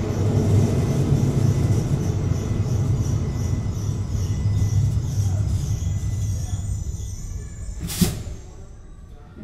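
Duewag B80C light-rail car standing still with its on-board equipment running, a steady low hum. About eight seconds in there is one sharp click, and the running sound then drops away to a quieter background.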